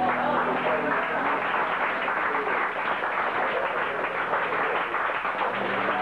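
Small audience clapping and cheering as a rock song ends; a low steady tone comes back in near the end.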